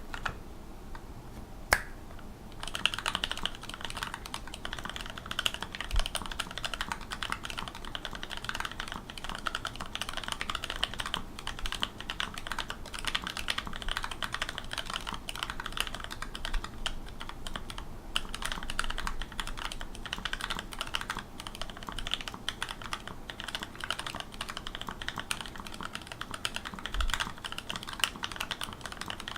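Mechanical keyboard with Bumblebee switches being typed on fast and continuously, a dense run of keystroke clacks. A single click sounds just under two seconds in, and the steady typing starts about a second later.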